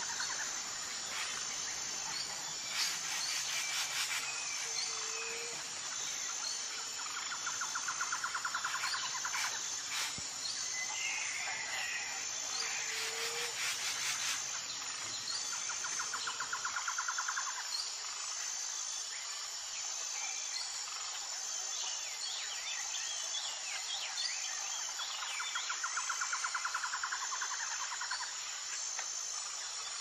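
Nature ambience of insects and birds: a steady, high, regular insect chirring. A rapid pulsing trill comes and goes every few seconds, and a few short bird chirps sound around the middle and later on.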